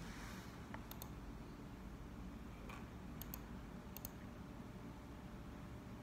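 A few faint computer clicks, several in quick pairs, over a steady low hum of room noise.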